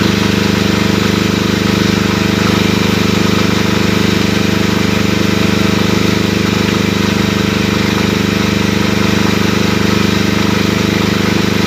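Agricultural multirotor drone spreading fertilizer: its rotors give a loud, steady, even hum.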